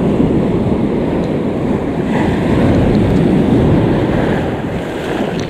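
Ocean surf breaking and washing up the beach close to the microphone, with wind rumbling on the microphone.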